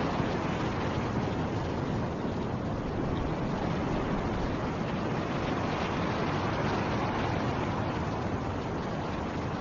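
Blizzard wind rushing steadily, a deep, even rumble that swells and eases slightly.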